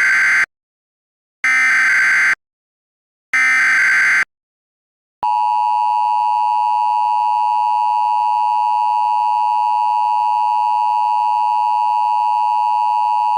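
Emergency Alert System signal: the tail of one SAME data burst and then two more, each a harsh warbling digital squawk about a second long. About five seconds in, the steady two-tone EAS attention signal starts and holds. This is the standard opening of an EAS alert before the spoken message.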